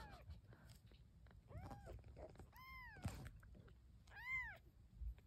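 Young kittens mewing: a few short, high mews about a second apart, each rising and then falling in pitch, with light rustling of cloth between them.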